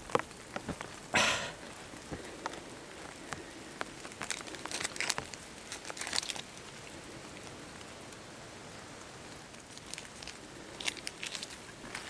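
Steady rain falling, with irregular rustling, crinkling and clicks of gear being handled: a loud rustle about a second in and more clusters in the middle and near the end.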